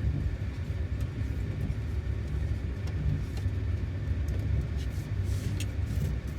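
Steady low rumble of a moving passenger train heard from inside the carriage, with a few faint light ticks and rattles.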